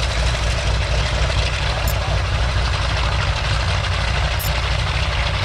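Douglas DC-6's four Pratt & Whitney R-2800 radial piston engines running at taxi power as the airliner rolls past, a steady deep drone of engines and propellers.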